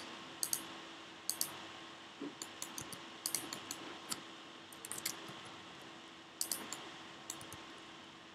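Computer mouse and keyboard clicks: about a dozen sharp separate clicks, some in pairs or quick clusters, over a faint steady hum and hiss.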